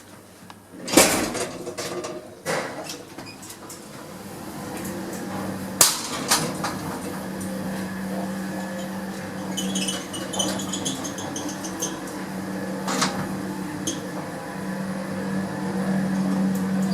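Old gated express lift with a variable-frequency drive: several sharp clanks and knocks from the car and its gates, then a steady hum of the lift running that builds from about four seconds in.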